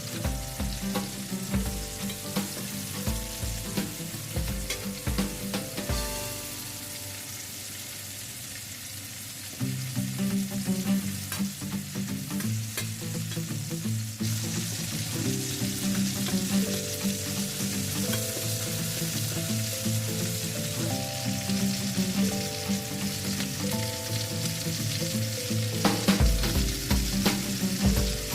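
Food sizzling in a frying pan, the hiss growing louder about halfway through, with a few knocks of a utensil against the pan near the start and end. Background music plays with it.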